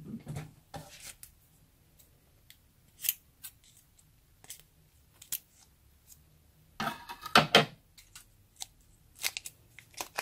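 Scissors snipping open the thin plastic wrapper of a block of modelling clay, with scattered sharp snips and a louder burst of crinkling and tearing plastic about seven seconds in.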